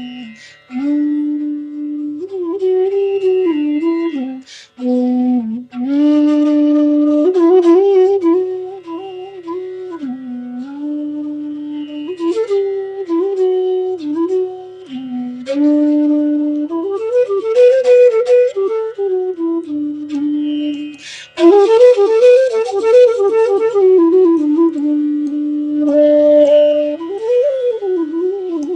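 Bansuri, the North Indian bamboo flute, playing a raga melody: held notes joined by smooth slides, with quick wavering ornaments in the more agitated phrases. A faint steady drone sounds underneath.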